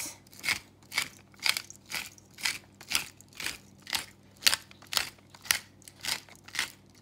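Black pepper mill being twisted over a bowl of raw chicken, grinding peppercorns in an even run of short crunches, about two a second.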